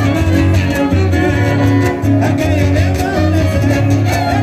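Son huasteco (huapango) played by a trío huasteco: a violin melody over the rhythmic strumming of the jarana and the bass of the huapanguera.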